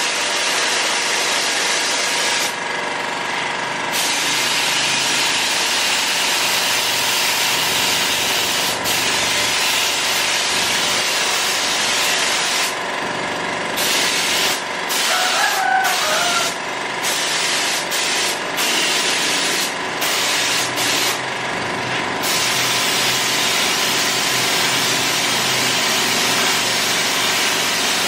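Gravity-feed compressed-air spray gun hissing steadily as it sprays clear coat onto a motorcycle wheel. The hiss thins briefly several times between passes.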